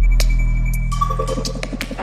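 Electronic dance music in a dubstep style: a held deep bass note that slowly fades, a few sharp clicks, and a rapid stuttering figure in the second half, leading into a brief break.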